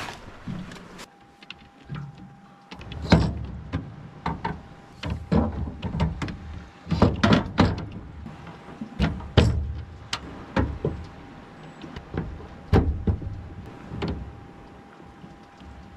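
Irregular knocks, clunks and rustles of gear being handled on a boat, a dozen or so strokes of varying loudness, with a faint steady high tone running underneath from about a second in.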